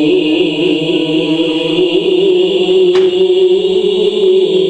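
A man reciting the Quran (tilawat) into a microphone, one long drawn-out melodic line. His voice wavers in quick ornaments for the first two seconds, then holds a steadier note. A brief click about three seconds in.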